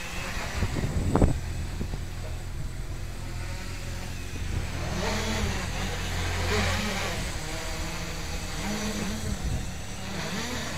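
Homebrew quadcopter's electric motors and propellers buzzing as it hovers low, the pitch rising and falling again and again as the motors change speed. A short loud thump about a second in.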